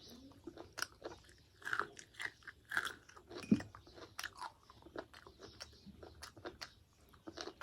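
A person chewing and biting food, with irregular small clicks and crackles from the mouth and one louder bite about three and a half seconds in.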